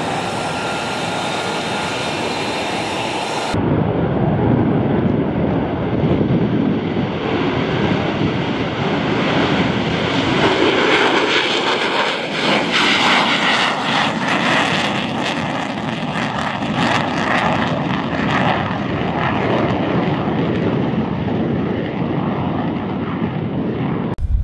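U.S. Marine Corps F-35B Lightning II's jet engine (Pratt & Whitney F135 turbofan). At first it is a steady whine with high tones. About three and a half seconds in it becomes a louder, rough roar at takeoff power as the jet rolls and climbs away, swelling with crackling through the middle.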